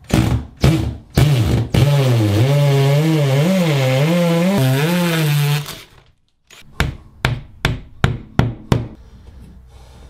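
Power drill boring a hole through the shower wall panel, its motor running steadily for about four seconds with a wavering pitch and a hiss of cutting. After a short break comes a quick run of sharp clicks and knocks.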